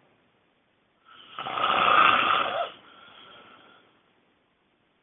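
A person snoring: one loud snore starting about a second in and lasting about a second and a half, trailing off into a fainter breath.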